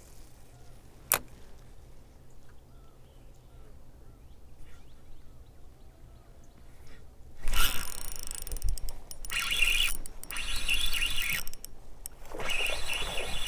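Quiet outdoor background with faint bird chirps. About halfway through, loud rustling noise starts suddenly and runs on in choppy bursts with short breaks.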